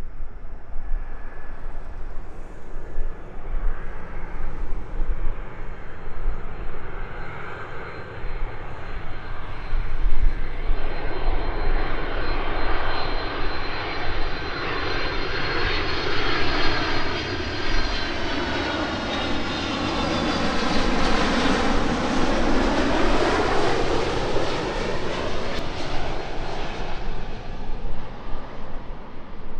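Jet airliner on landing approach flying past: the engine noise and a high turbofan whine build up, peak about two-thirds of the way through with the whine dropping in pitch as it goes by, then fade.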